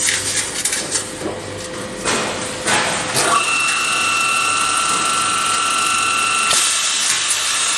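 P beam roll forming machine at work: scattered metallic clanks and knocks of the steel profile and machine parts, then from about three seconds in a steady mechanical whine. About six and a half seconds in a hiss joins the whine.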